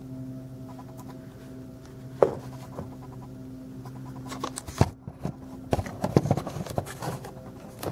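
Handling noises from a small diecast model truck and the camera being moved around it: a sharp click about two seconds in, another near five seconds, then a close cluster of small knocks and rubbing, over a steady low hum.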